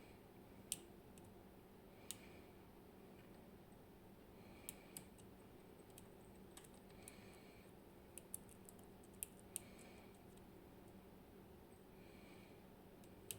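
Faint, irregular metallic clicks of a dimple pick working the pins of a ten-pin Clavis 10 dimple lock held under tension, about nine sharp ticks spread unevenly, with soft scraping of the pick in the keyway between them.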